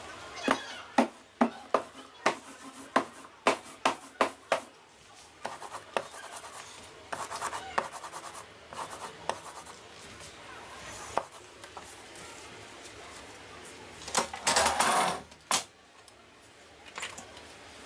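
A rapid series of sharp clicks and knocks, then a hand brayer rolling ink over a linocut block with a rough rubbing sound. Near the end comes a louder rustling burst as a sheet of paper is handled and laid on the block.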